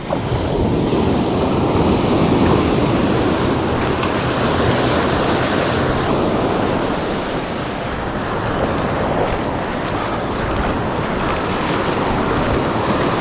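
Surf washing and breaking in the shallows, a steady rushing of water, with wind noise on the microphone.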